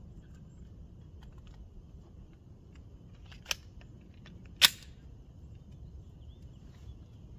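Small clicks of a Glock G40 pistol and its magazine being handled, with two sharp clacks a little over a second apart about halfway through, the second one the loudest.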